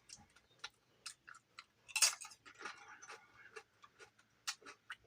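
Eating sounds close to the microphone: irregular wet mouth clicks and smacks while chewing, a little louder about two seconds in.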